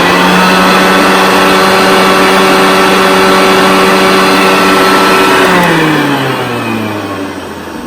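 1979 Hoover Senior upright vacuum's motor running at full speed with the belt off, a steady hum, then switched off about five and a half seconds in and winding down with falling pitch. It runs not that smooth, which the owner puts down to dry motor bearings.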